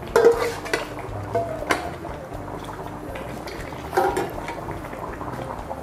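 Metal cookware clinking and knocking: a few knocks in the first two seconds and a louder one about four seconds in, as a stainless saucepan is handled against a pan. Underneath is the steady bubbling of rice and freshly poured water boiling hard in an enamel stockpot.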